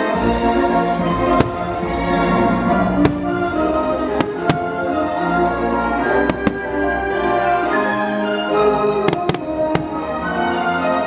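Orchestral fireworks-show music playing over loudspeakers, with firework shells bursting in sharp cracks about nine times, some in quick pairs.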